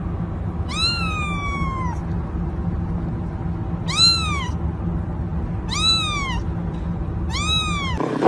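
A kitten meowing four times in high, thin calls, each rising and then falling in pitch; the first is the longest. A steady low hum runs underneath.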